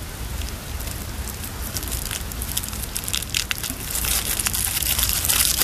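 Packaging crinkling and crackling as an action-figure accessory is unwrapped by hand, the crackles getting busier and louder in the second half.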